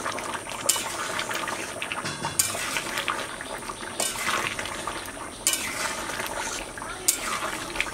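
Metal spatula stirring a thick simmering curry in a metal karahi, clinking and scraping against the pan about every second and a half.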